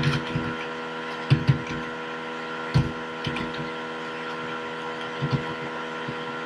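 Computer keyboard keys clicking in scattered taps as a short line is typed, over a steady hum.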